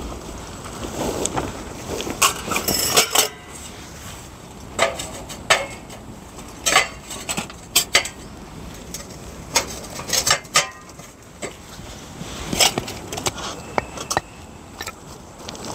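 Irregular clinks and knocks of hard objects being handled, well over a dozen, some with a brief metallic ring.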